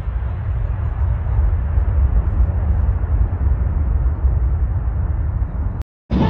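Boeing 747's four jet engines at high thrust as it lifts off and climbs away in a go-around, a steady loud rumble with heavy low end. The sound cuts off abruptly near the end.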